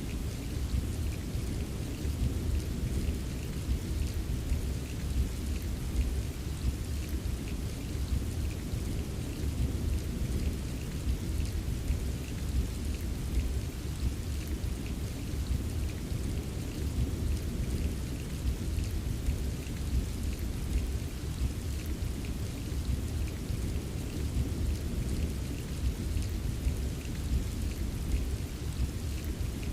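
Steady rain ambience: rain falling continuously over a deep, unbroken low rumble, with faint ticks of individual drops higher up.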